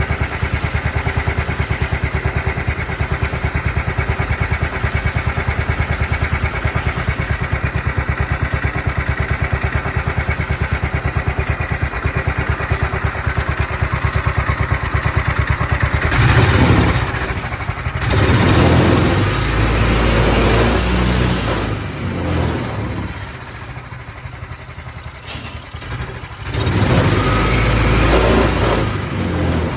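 Small gasoline engine of a utility vehicle running with a fast, even beat, then swelling louder with a deep rumble several times from about halfway through, as if revved or loaded.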